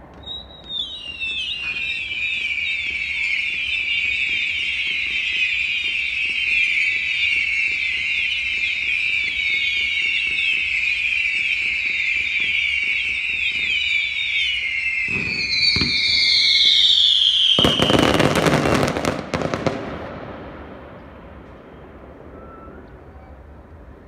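Fireworks whistling: many shrill whistles overlapping, each sliding down in pitch, for most of the stretch. Near the end comes a quick salvo of loud bangs and crackles before it dies away.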